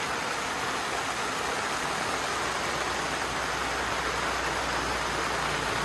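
Heavy rain falling: a steady, even hiss of a downpour, loud enough that speech has to compete with it.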